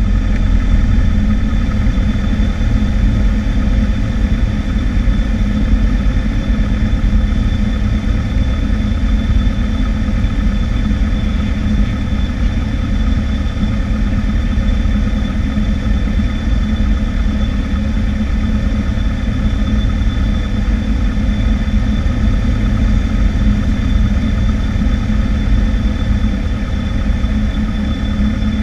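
Cessna 152's Lycoming O-235 four-cylinder engine and propeller running at a steady, unchanging power, heard from inside the cabin on final approach to the runway.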